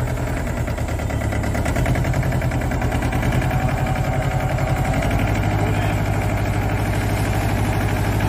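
Mahindra Jivo 225 DI tractor's small two-cylinder diesel engine running steadily with an even, rapid firing beat.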